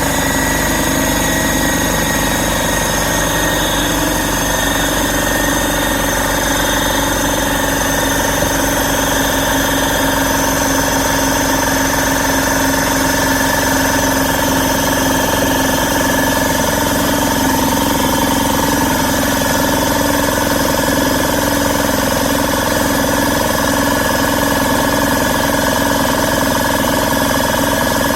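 Portable electric air compressor running steadily while filling its tank. Its pitch sags slowly as the motor works against rising tank pressure.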